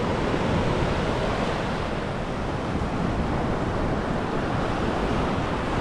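Small surf breaking and washing up a sandy shore in a steady, continuous wash, with some wind on the microphone.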